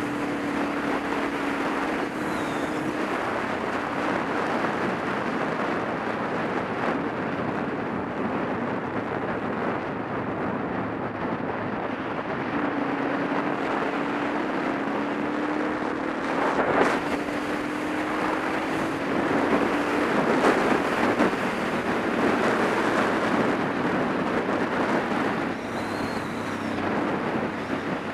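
Supermoto motorcycle riding on the road: heavy wind rush over the microphone with the engine note underneath, rising slowly in pitch partway through as the bike picks up speed, and a few louder gusts of wind later on.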